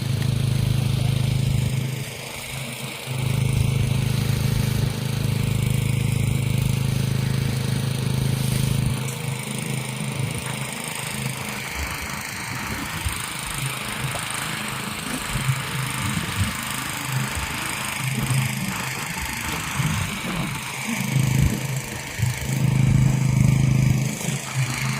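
Engine of a piece of site machinery running at a steady speed, a low hum with its level dipping and rising several times.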